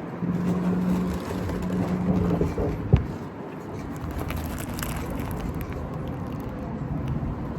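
Vehicle noise: a steady hum with a held low tone for the first two seconds or so, and a single sharp click about three seconds in.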